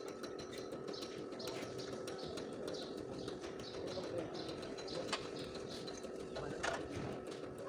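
Scattered light clicks and taps, with birds calling in the background.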